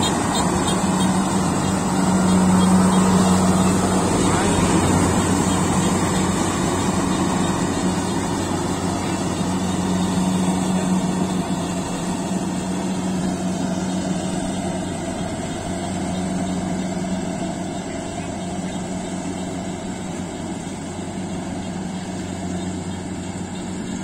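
Kubota DC68G combine harvester running steadily as it cuts and threshes rice, its diesel engine giving a low, even hum that gradually grows fainter as the machine moves off.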